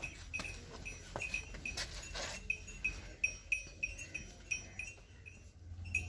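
Milk squirting from a water buffalo's teats into a metal pail during hand milking: short ringing spurts in an even rhythm of about three a second.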